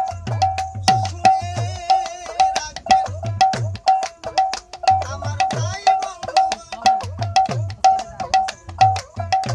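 Live folk music on a plucked string instrument: a single bright note struck over and over, about three times a second, with sharp clicks and low drum-like thuds keeping the beat. A wavering voice sings briefly twice, a couple of seconds in and around the sixth second.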